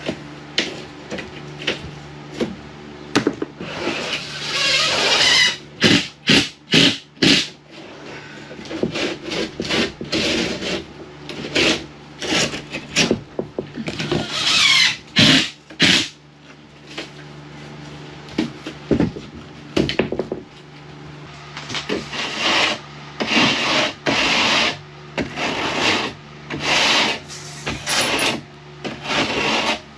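Drywall being worked by hand: irregular scraping and rubbing strokes, some lasting about a second, mixed with short knocks and clicks, over a steady low hum.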